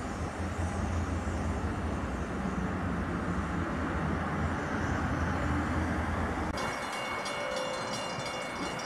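Freight train of tank cars rolling along the track with a steady low rumble. About two-thirds of the way through it cuts off abruptly and a grade-crossing warning bell is heard ringing repeatedly as a diesel passenger locomotive approaches.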